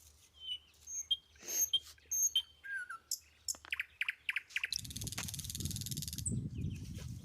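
Small birds chirping and calling in short repeated notes, some sliding in pitch. About two-thirds of the way in, a loud rushing, rumbling noise takes over and drowns them out.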